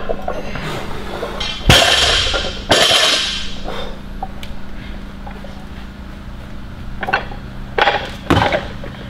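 Loaded barbell clanking and thudding during a power clean. There is a heavy metallic impact a couple of seconds in and another about a second later, each ringing briefly, then two smaller knocks near the end.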